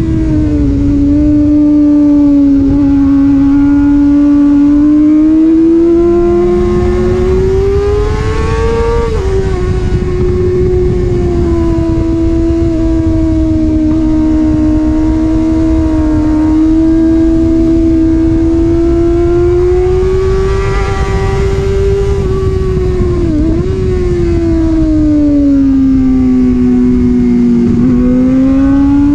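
Sport motorcycle engine running hard at track speed, heard from onboard with heavy wind rush on the microphone. Its pitch rises and falls slowly, with a few brief sharp dips.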